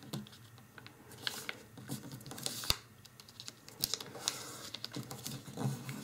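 A square of origami paper being folded and creased by hand: scattered soft rustles and crisp scratching strokes as the fingers slide along and press the fold, with one sharp click about two and a half seconds in.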